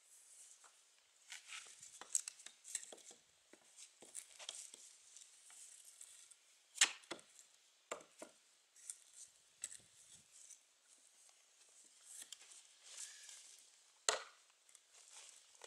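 Faint scraping and clattering of a long metal bar being fitted onto an 8 mm steel rebar set in a polystyrene-concrete wall and levered against a wooden block. Sharp knocks come about 7, 8 and 14 seconds in.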